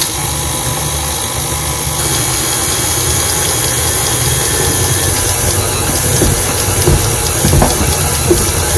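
KitchenAid Artisan stand mixer running steadily, its flat beater churning stiff, crumbly flour-and-butter dough, with a few knocks in the second half.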